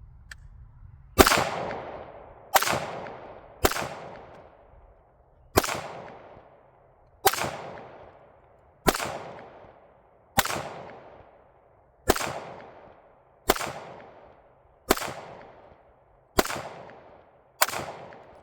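Twelve gunshots fired one at a time at an even pace, about one and a half seconds apart. Each is a sharp crack with a long, echoing tail that fades before the next shot.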